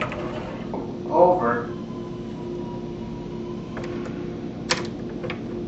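A few light, sharp clicks of shutter rollers being moved along the top track, about four to five seconds in, over a steady hum.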